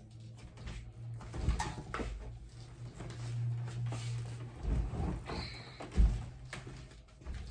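Knocks, bumps and rustling from a person moving about right next to a phone camera and settling down in front of it, the sharpest thump about six seconds in, over a steady low hum.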